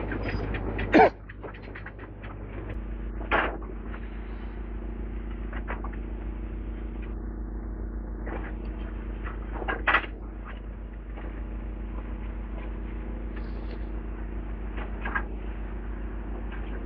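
Heavy diesel demolition machinery running steadily, its engine note stepping up about three seconds in. Scattered knocks and clanks sound over it, the loudest about a second in, with others near three and a half and ten seconds.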